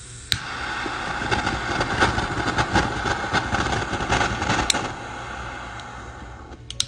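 Butane jet torch lighter: an ignition click, then the blue jet flame hissing with a crackly rush, quieter from about five seconds in, until it cuts off. A couple of quick metal clicks near the end.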